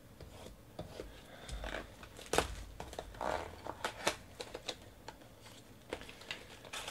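Clear plastic shrink wrap crinkling and a cardboard trading-card box being handled, its top flap pulled open: a string of irregular small crackles and clicks.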